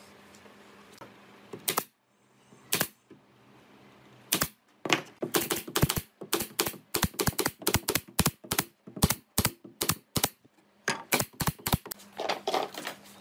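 Pneumatic brad nailer firing into pine slats: a few single sharp shots at first, then a rapid string of shots with short pauses between bursts.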